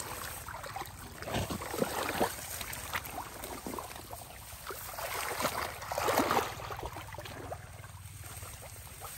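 Thick muddy water sloshing and squelching as a person gropes through a shallow mud pool with arms and hands, in irregular splashes, with louder bursts about two seconds in and again between five and six and a half seconds.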